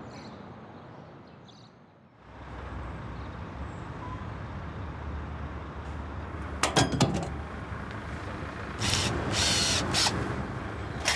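Background music fades out, then a heavy truck engine idles steadily from about two seconds in. A couple of sharp clanks come midway and two loud noisy bursts near the end.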